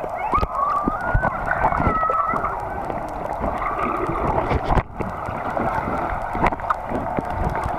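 Swimming-pool water heard through a submerged waterproof camera: a muffled, steady churning and gurgling of water with scattered clicks and knocks.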